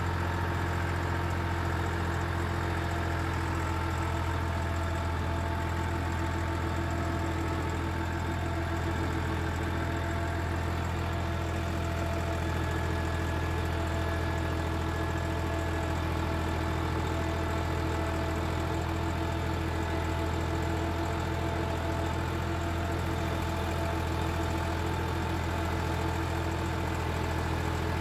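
Massey Ferguson 260 tractor's diesel engine running at a steady speed, heard close from the driver's seat as the tractor drives along a rough dirt track. The engine note holds constant, with no revving.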